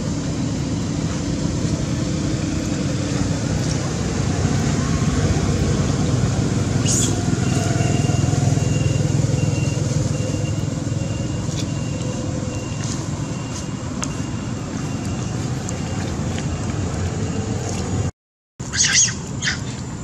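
Steady low rumble of outdoor background noise, like distant road traffic. There is a short high-pitched chirp about a third of the way in, and a quick cluster of high chirps or squeaks near the end, just after a brief drop-out.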